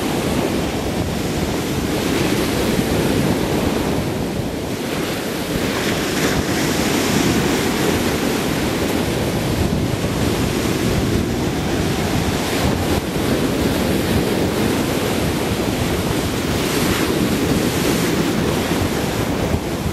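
Ocean surf breaking and washing up the shore, with wind buffeting the microphone.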